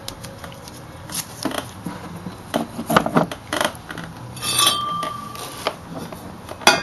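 Steel exhaust tubing pieces being handled against each other and the header: a string of knocks and clinks, one of which rings on briefly about four and a half seconds in, then a sharp click near the end.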